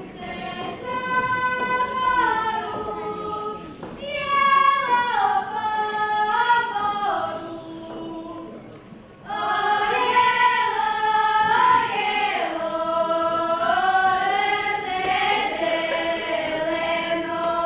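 Young female voices singing a Zagorje folk song unaccompanied, held notes with sliding ornaments. After a short breath about nine seconds in, the singing comes back louder and fuller.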